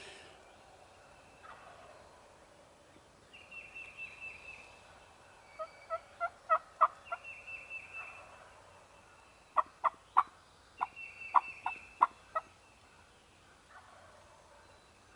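Wild turkeys calling: three short, rapid rattling runs of about a second each, mixed with groups of sharp clucking notes.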